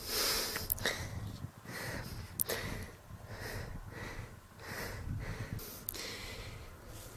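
A person breathing hard close to the microphone, about one breath a second, with a few sharp clicks in between.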